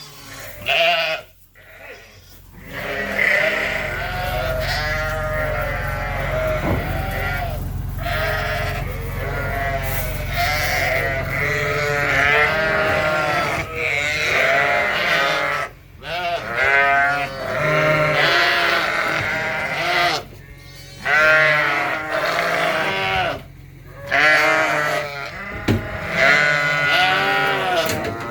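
A flock of ewes and lambs bleating continuously, many voices overlapping, as the ewes are moved out of the barn. A low steady hum sits underneath through the first part.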